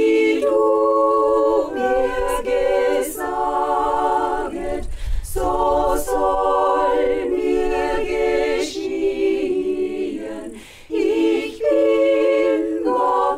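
Women's choir singing a cappella, in phrases with brief pauses between them.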